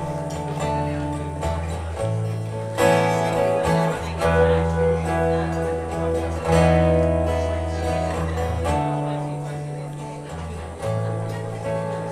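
Live band playing a slow instrumental intro: strummed acoustic and electric guitars over sustained bass notes and drums, with the chords changing every second or two.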